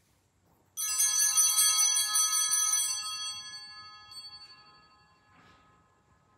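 Altar bells, a cluster of small hand bells, shaken and ringing about a second in. They jangle for about two seconds, then ring out and fade. The ringing marks the elevation of the consecrated host at Mass.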